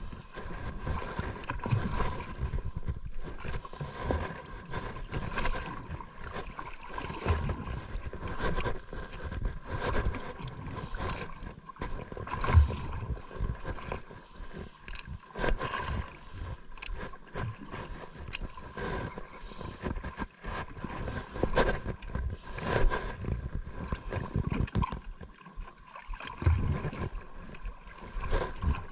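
Wind gusting on the microphone and sea water splashing around the boat on open water, with a faint steady whine underneath.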